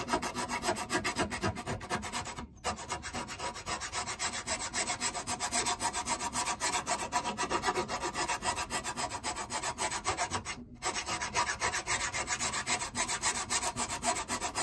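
Hand file rasping on a cast-iron bench plane casting, worked back and forth in rapid, even strokes to take metal off so a thicker replacement iron will fit. The stroking breaks off briefly twice, about two and a half seconds in and again near eleven seconds.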